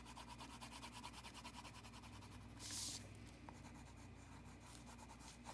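Wax crayon scribbling on paper in quick back-and-forth strokes as a wedge is coloured in, faint and scratchy, with one louder scrape about two and a half seconds in.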